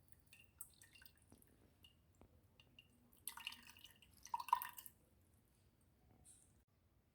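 Liquid dripping and splashing into a container in a short burst about three seconds in, after a few faint small clicks.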